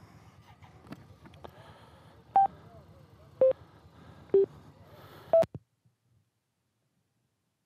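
Four short electronic beeps, each at a different pitch, about a second apart over a faint low rumble. The sound cuts off suddenly just after the last beep.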